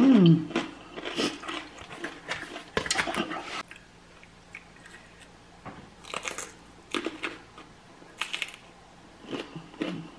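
Close-up crunching and chewing of a raw jalapeño stuffed with cream cheese and Takis chips, in repeated bites that are dense over the first few seconds and sparser later. A short falling hum from the eater comes right at the start.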